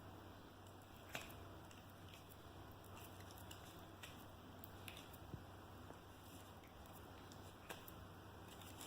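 Near silence with a faint steady hum and a few scattered soft clicks and ticks from fingers handling and straightening the twisted-pair Cat5 wire ends.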